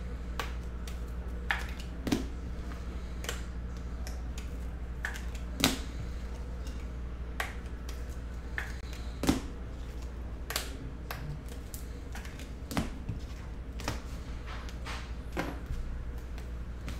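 Sparse, irregular sharp clicks and taps from handling things at a desk, over a steady low hum.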